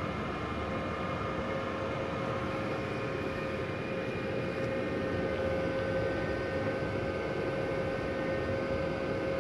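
Multipro MIG-MMA/TIG 160 A-SC inverter welder switched on and idling, not welding: its cooling fan runs with a steady whooshing hum and a steady tone.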